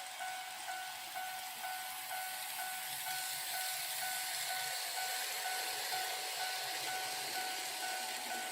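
KATO N-gauge automatic level crossing's electronic warning bell ringing, an even two-tone ding about twice a second, while a model train runs past with a rolling hiss that swells through the middle.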